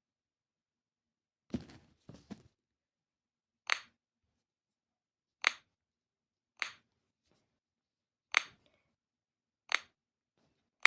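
Short sharp clicks, about eight of them, one every second or two, with a softer double knock near the start and dead silence in between.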